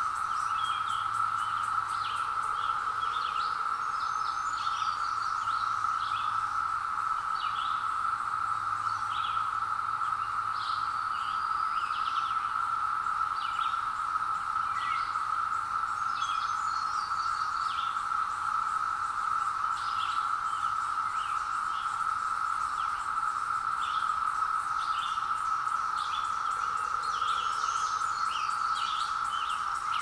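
Chorus of 17-year periodical cicadas massed in woodland: a steady, unbroken drone at one pitch. Songbirds chirp briefly over it now and then.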